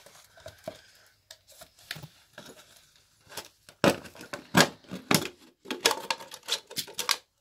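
Thin clear plastic crinkling and crackling as it is handled: a cut plastic bottle and a plastic bag. It comes in irregular bursts, sparse at first and loudest and densest in the second half.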